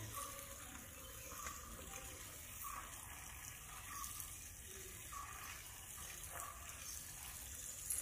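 Steady, faint rushing of flowing water from a forest stream or waterfall, with a faint short sound repeating about once a second.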